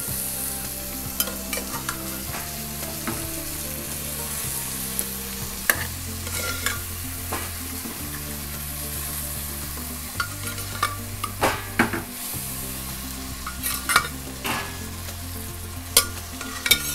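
Boiled chana dal and green moong sizzling as they go into hot butter-fried tadka masala in a metal kadai. A metal spatula scrapes and clicks against the pan now and then as the dal is stirred in.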